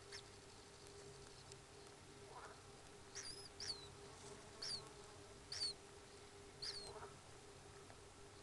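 Faint, short high chirps from a common kingfisher nest chamber, about five of them a second apart from around three seconds in, each dropping slightly in pitch. A steady low hum sits under them.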